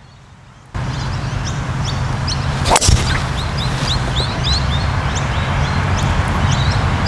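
A golf driver strikes the ball off the tee: one sharp crack about three seconds in. Birds chirp throughout over a steady low rumble.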